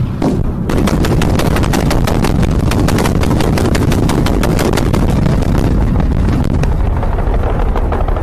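Machine-gun fire in a rapid, continuous stream of shots, many a second, starting under a second in and thinning out near the end, over a steady low rumble.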